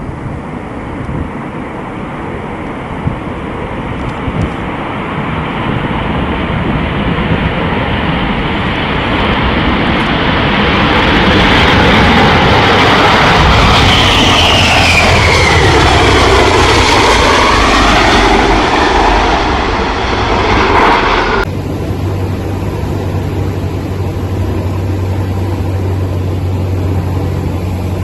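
Jet engine noise of a large jet aircraft on a low pass, growing louder as it comes closer, with a falling whine as it goes by. About three quarters of the way through it cuts off suddenly and gives way to the steady drone of a single-engine propeller plane, heard from inside its cabin.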